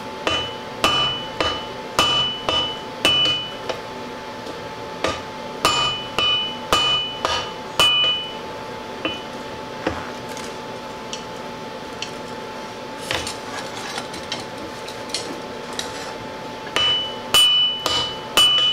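Hand hammer striking red-hot 5160 leaf-spring steel on an anvil, about two blows a second, each with a bright metallic ring. The blows come in runs, easing to a few light taps for several seconds in the middle before a last run near the end.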